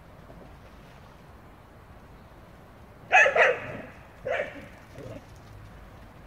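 A dog barks about halfway through: two quick barks, then a third and a fainter fourth.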